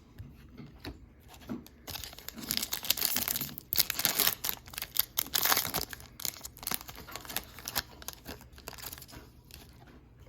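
A foil trading-card pack wrapper being torn open and crinkled, loudest from about two to six seconds in, followed by lighter scattered clicks and rustles.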